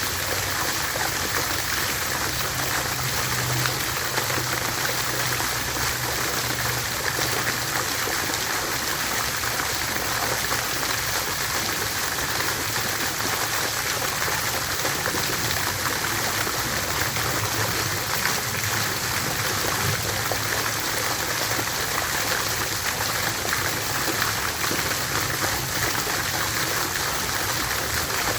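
Water fountain splashing and trickling steadily, a continuous even rush of falling water.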